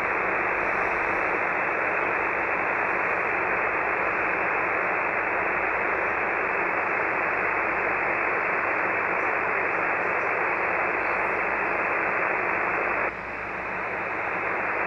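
Steady static hiss from a KiwiSDR shortwave web receiver in sideband mode, with no station audible on 3815 kHz. It is cut off above and below like a voice channel. About thirteen seconds in it drops suddenly as the receiver is retuned toward 14.200 MHz, then slowly climbs back.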